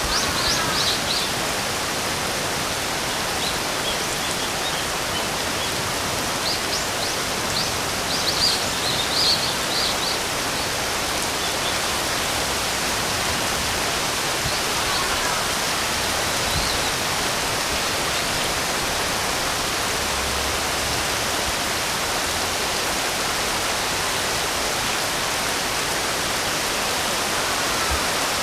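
Steady rain hissing, with birds chirping off and on through the first ten seconds or so, and a few faint calls later.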